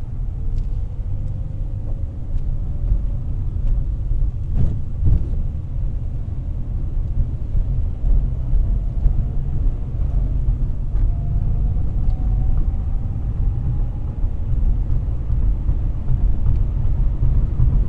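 Car driving: a steady low rumble of road and wind noise, with a faint whine that rises slowly in pitch twice. A brief thump about four and a half seconds in.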